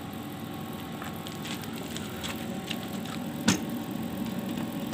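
Steady electrical hum from an open power amplifier and speaker system under test, with scattered small crackles and one sharp pop about three and a half seconds in while the amplifier's cable connections are being handled.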